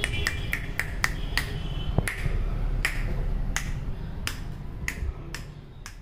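A person snapping their fingers over and over, short sharp snaps about one or two a second at uneven spacing, over a steady low rumble; the sound grows fainter toward the end.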